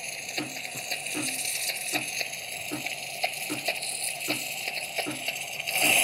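Ascaso Dream Up thermoblock espresso machine's steam wand venting steam: a hiss that spits in regular pulses about twice a second. Just before the end the steam valve is opened further and a much louder steady hiss starts.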